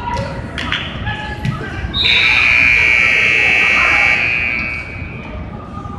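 Indoor soccer arena's horn sounding one long steady blast, starting about two seconds in and lasting about two and a half seconds, over spectator voices and a couple of knocks.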